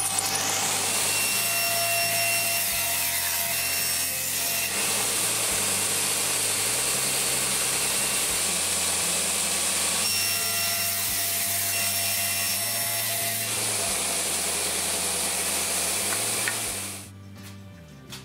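Cabinet table saw ripping a hardwood board lengthwise, a loud, steady whine and cutting noise of the blade in the wood. The sound cuts off near the end.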